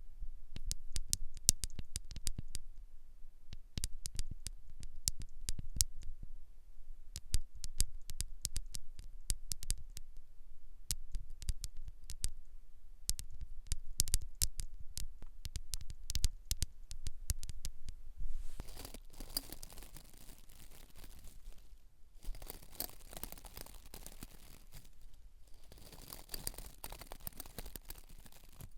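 Close-miked ASMR scalp-care sounds: many quick crisp clicks and scratches for the first two-thirds, then soft rubbing hiss in three long stretches.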